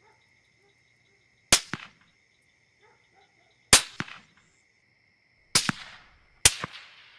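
Four rifle shots, each a sharp crack followed a fraction of a second later by a fainter second report. The last two come about a second apart.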